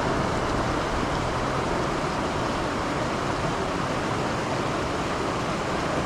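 Mountain river running over rocks: a steady, even rush of water.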